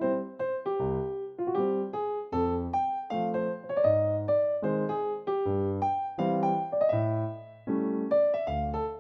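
Background music: a light, bouncy piano tune with a steady rhythm.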